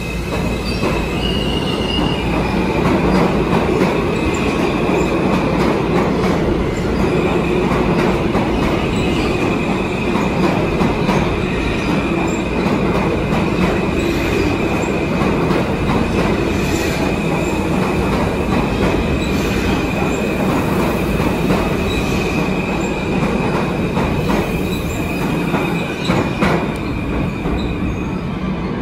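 Kawasaki R160B subway train running, its wheels giving a steady high squeal over the rumble of the wheels on the rails, with a few sharp clicks. A brief higher squeal comes about a second in, and the main squeal holds from about a quarter of the way through almost to the end.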